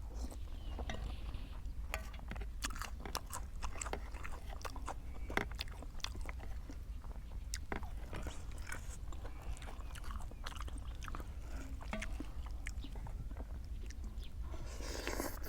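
Close-up eating sounds: chewing with many sharp, irregular crunches of crisp food, over a steady low hum.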